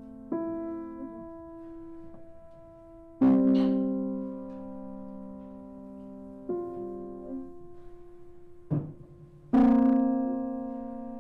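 Grand piano played slowly: five separate chords struck one to three seconds apart, each left to ring out and fade, the loudest about three seconds in and near the end.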